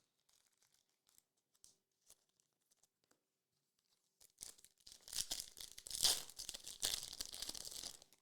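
Light handling rustles, then a loud stretch of tearing and crinkling from about four seconds in: the foil wrapper of a Topps Garbage Pail Kids Chrome trading-card pack being torn open.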